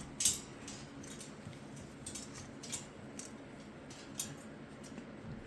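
Faint rustling with a few soft, scattered clicks.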